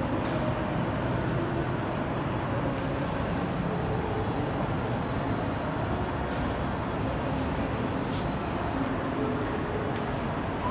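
Steady noise of city traffic heard from above the street, with no single vehicle standing out.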